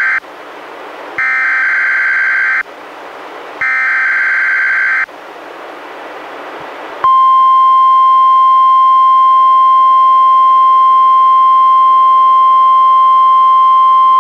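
NOAA Weather Radio Required Weekly Test tones: the end of one SAME header data burst, then two more harsh digital bursts of about a second and a half each, with hiss in the gaps. About seven seconds in, the steady 1050 Hz warning alarm tone starts and holds.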